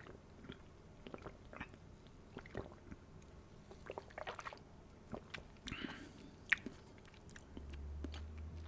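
Close-miked mouth sounds of sipping and tasting a carbonated energy drink: scattered soft wet clicks and smacks of the lips and tongue.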